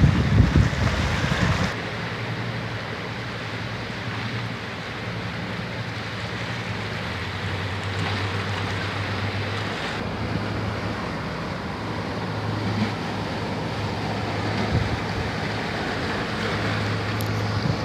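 Wind buffeting the microphone with a loud low rumble for the first second or two, then a steady rushing noise over a low hum that fades in and out.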